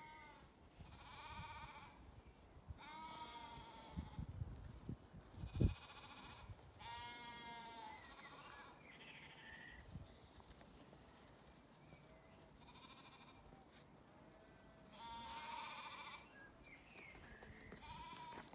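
Sheep bleating, about eight separate wavering calls of roughly a second each. A dull low thump about five and a half seconds in is the loudest single sound.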